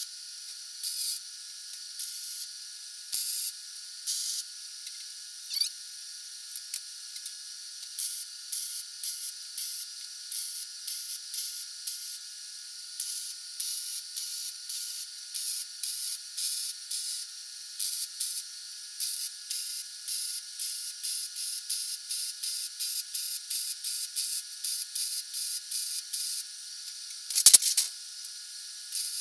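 Hobart Handler 190 MIG welder laying a string of short tack welds, each a brief burst of arc crackle lasting a fraction of a second, coming faster toward the end at about two a second. A single sharp knock near the end is the loudest sound.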